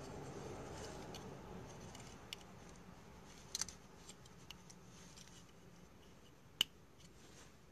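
Faint handling noise of a smoke detector's circuit board being turned over in the fingers, with a few small clicks and one sharper click near the end.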